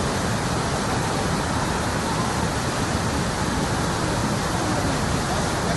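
Steady rushing of fast-flowing water, with faint voices in the background.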